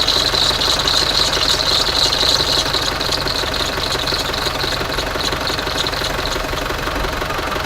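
Land Rover Defender 300Tdi four-cylinder turbodiesel idling, with a steady high-pitched squeak from the engine bay that fades away about six seconds in, after WD-40 is sprayed on the alternator. The owner puts the squeak down to a loose roller bearing in the alternator.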